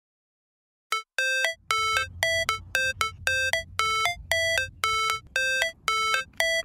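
Dead silence for about a second, then electronic background music: short, bleepy synth notes repeating about three times a second.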